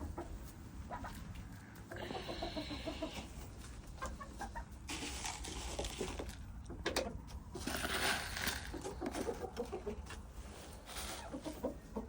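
Domestic hens clucking steadily, many short calls overlapping, with several stretches of rustling noise, the loudest about two-thirds of the way through.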